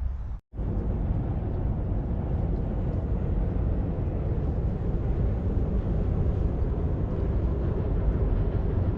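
Steady low rumbling noise of an outdoor recording, broken by a brief dropout to silence just under half a second in.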